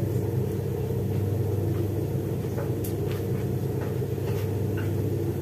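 A steady low rumble, with a few faint soft taps as hands knead soft potato dough on a plastic cutting board.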